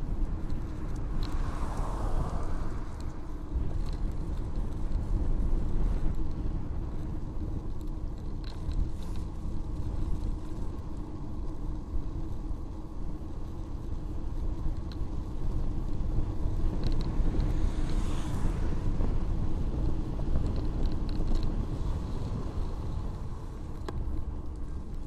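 Steady wind and tyre rumble picked up by a camera riding on a bicycle along a paved cycle path at around 20 to 26 km/h. A louder swell about two seconds in fits a car passing on the road alongside, and there is another swell near the end.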